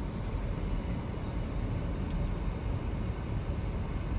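Steady low rumble of a car's engine and tyres heard from inside the cabin as the vehicle rolls forward.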